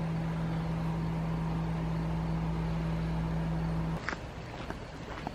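A steady motor hum with a strong low drone cuts off abruptly about four seconds in. Quieter outdoor background follows, with a few short high chirps.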